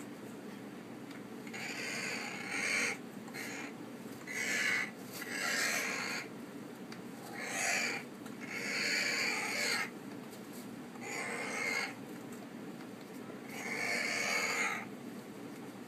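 Severe macaw giving a run of raspy, breathy calls, each about a second long, every second or two, while mounting a stuffed toy: the hormonal breeding-season vocalising of a male macaw.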